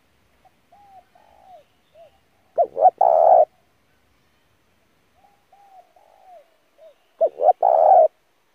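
Spotted dove cooing: two song phrases about four seconds apart, each opening with a few soft, curving notes and ending in two short loud coos and a longer one.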